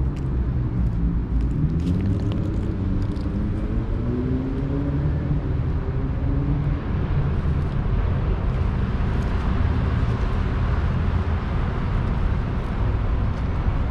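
Road traffic: a steady low rumble of motor vehicles, with an engine note rising and falling in the first half as a vehicle passes.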